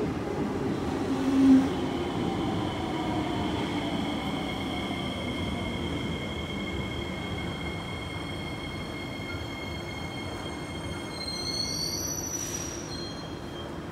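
Electric metro train slowing down: motor whine falling in pitch, with high steady squealing tones above it. A short hiss comes near the end as it comes to a stop.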